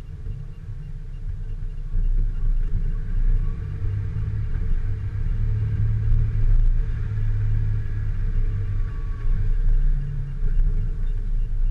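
Off-road vehicle engine running with a low, uneven rumble that gets louder about two seconds in.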